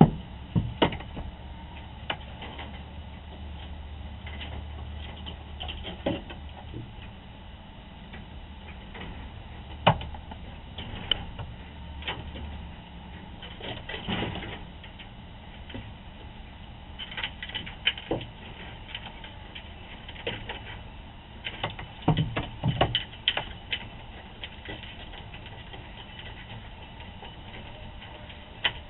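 Scattered knocks, scrapes and rustles of a raccoon clambering over the coop's nest boxes and framing, heard through a security camera's microphone over a steady hiss. The knocks come singly at first and bunch into a quick cluster about three-quarters of the way through.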